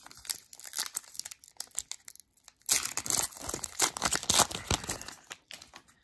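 Upper Deck hockey card pack's foil wrapper being torn open and crinkled by hand: a dense run of crackles, loudest around the middle, when the pack splits open.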